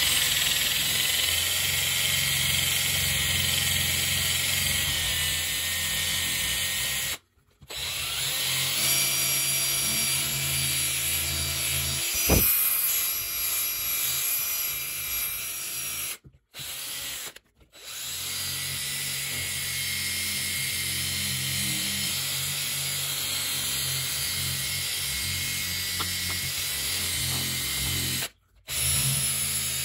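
Cordless drill spinning a polishing pad against a red tail light lens, buffing in rubbing compound. The motor runs at a steady speed in several long stretches, broken by short silent gaps, with one sharp knock partway through.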